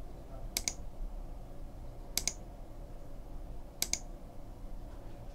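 Computer mouse button clicked three times, about a second and a half apart; each click is a quick double tick of press and release, over a faint steady low hum.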